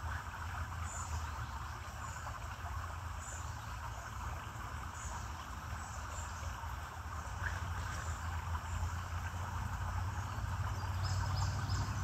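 Outdoor ambience: a steady low rumble under an even hiss, with short high chirps every second or two and a quick run of them near the end.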